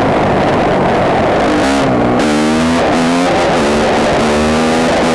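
KTM 250 EXC-F's single-cylinder four-stroke engine revving while being ridden, its pitch climbing and dropping several times as it accelerates and changes gear, with a shift about two seconds in.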